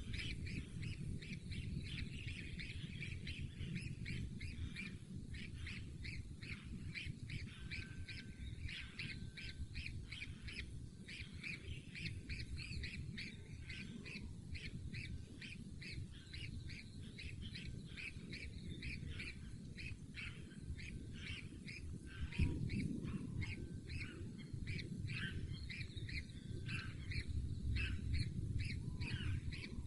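Birds calling: a dense run of short, rapidly repeated chirps over a low rumble.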